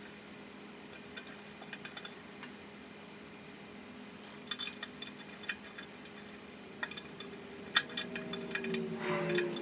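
Small metallic clinks and taps in three short clusters: Allen-head bolts being handled and started into an LS1 intake manifold.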